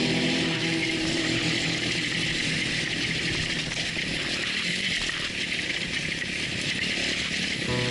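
Sawmill running: a steady mechanical whir with a strong hiss, typical of a saw cutting. Faint music fades out about a second in and returns near the end.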